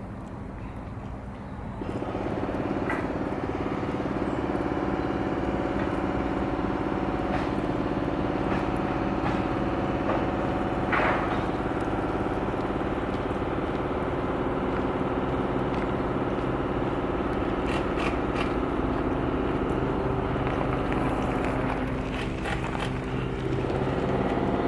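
A steady mechanical drone with several held tones sets in about two seconds in and runs on unchanged, with scattered light clicks and scrapes over it.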